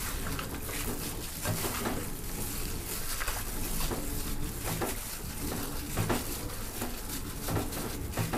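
Hands mixing chicken pieces with marinade and sliced shiitake mushrooms in a bowl: irregular soft knocks and clicks of the food and the bowl.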